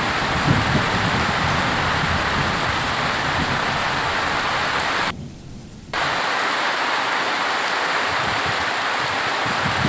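Steady heavy rain, with a low rumble of thunder in the first half. About five seconds in, the rain sound cuts out for under a second and then comes back.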